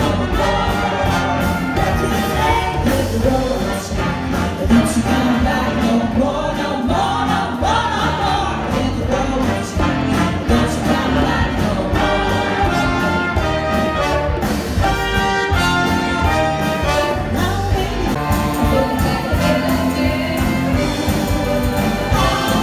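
Live band music with a steady beat, a brass section of trumpet and trombone, drums and electric guitar, and a group of women singing together into microphones.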